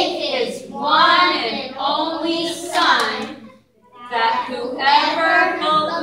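Young girls and a woman chanting a cheer together in a sing-song rhythm, in two phrases with a brief break in the middle, with a hand clap about three seconds in.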